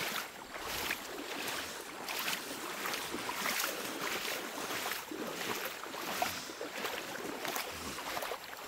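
Water sloshing and splashing as a person in waders wades through shallow marsh water, towing an inflatable boat whose bow pushes a wake. The sloshing surges again and again as he strides.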